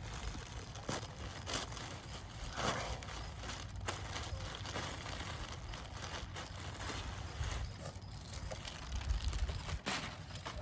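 Irregular rustling and crinkling as a cloth costume and its packaging are handled and unfolded.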